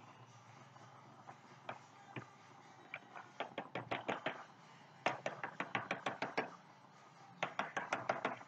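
Rapid tapping on a clear plastic food tub as food in it is worked by hand, in three quick runs of about a second each, several taps a second.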